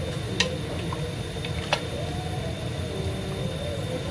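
A wooden spoon stirring soup in a stainless steel stockpot, with two sharp knocks of the spoon against the pot, one about half a second in and one near two seconds in. A steady low rumble runs under it.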